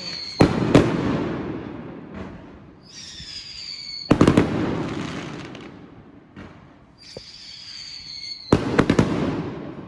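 Fireworks going off in three volleys, each a cluster of two or three sharp bangs that fade away. A high whistle, falling slightly in pitch, comes before the second and third volleys.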